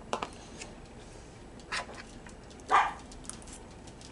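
A dog barks twice, short barks about a second apart, the second much louder.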